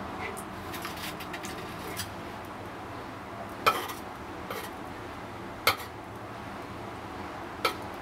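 Metal feeding tongs clicking against a food dish: three sharp clicks about two seconds apart, with a few fainter ticks between them.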